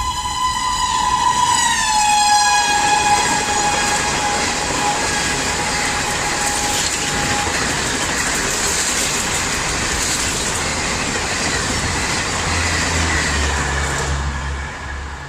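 ABB WAP5 electric locomotive's horn sounding a long shrill blast that drops in pitch about two seconds in as the locomotive passes at high speed, fading out after several seconds. The rushing rattle of the express's coaches on the track follows and dies away near the end.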